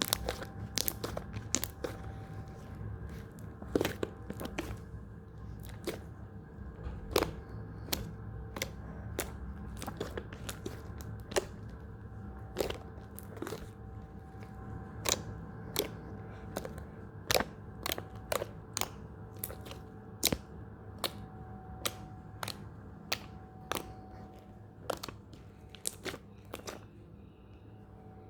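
Pink slime being squished and poked by hand, giving sharp crackling pops one or two a second, over a steady low hum.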